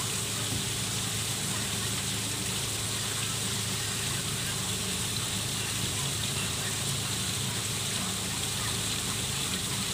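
Small garden waterfall spilling over rocks into a koi pond: a steady, even splashing of water, with a low steady hum underneath.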